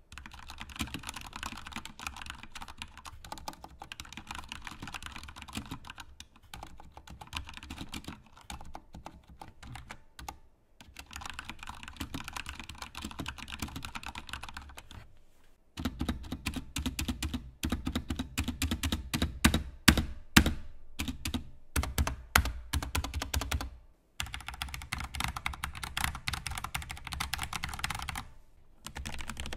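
Typing on a Corsair K70 RGB PRO mechanical keyboard with Cherry MX Speed Silver switches: fast, continuous key clacking that pauses briefly a few times. About halfway through comes a louder stretch of separate, heavier keystrokes.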